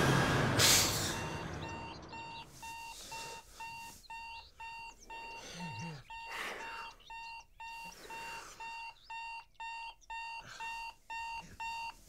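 An electronic alarm clock beeping, short two-tone beeps repeating about twice a second. It starts after a loud whooshing hit fades out over the first couple of seconds.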